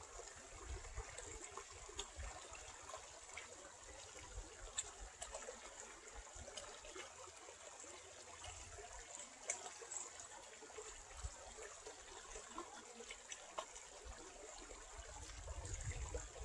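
Shallow creek trickling and babbling over stones, faint and steady, with small splashes here and there.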